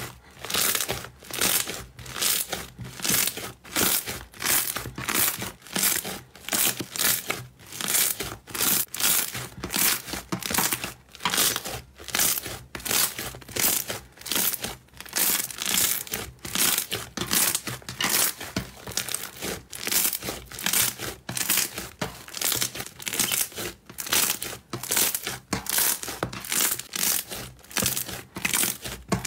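Hands kneading and squeezing a large mound of fluffy slime, a short burst of noise with each press, repeating about twice a second.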